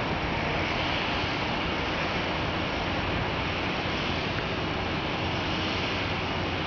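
Boeing 777-300's twin jet engines at takeoff thrust, a steady rushing noise.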